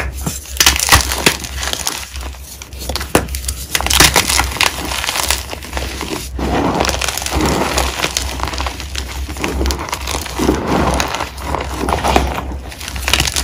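Gym chalk being crushed by hand: chunks crumbling and crunching between the fingers in loose chalk powder, a dense, continuous run of crackles and soft crunches.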